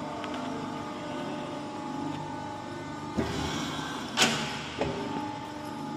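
Hydraulic guillotine shear running with a steady machine hum and whine. A few knocks come from the machine, the loudest a sharp clunk a little over four seconds in.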